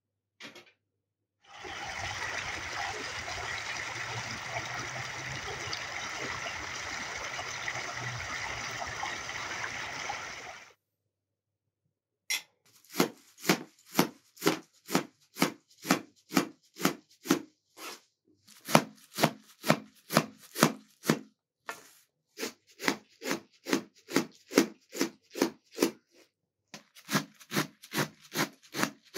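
A steady rushing noise for about nine seconds, then a kitchen knife chopping fresh herbs against a large metal tray: sharp strokes about two a second, in runs broken by short pauses.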